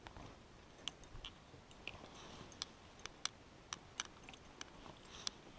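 Faint, irregular clicks and light taps of fishing tackle being handled, about a dozen over a few seconds.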